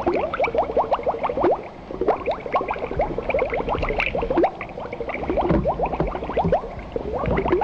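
Water bubbling and gurgling: a quick, continuous run of short rising plops, several a second, over a low rumble.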